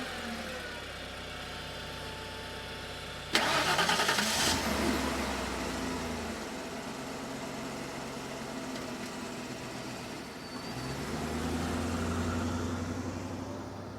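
Modern car sound effects in sequence: engines running and idling. A sudden loud, noisy burst about three seconds in lasts about a second, and an engine swells louder near the end.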